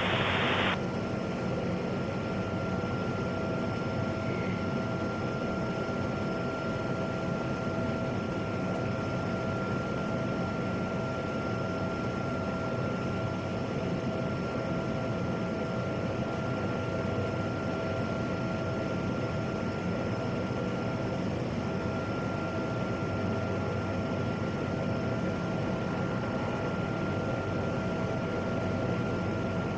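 PAC 750XL single-engine turboprop's PT6A engine running steadily at taxi power, a steady whine over a noisy hum. Its pitch edges up near the end.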